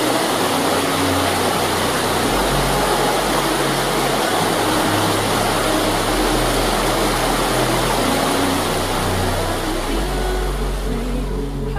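Water rushing over stream rocks: a loud, steady hiss. Underneath, low bass notes of background music change every couple of seconds.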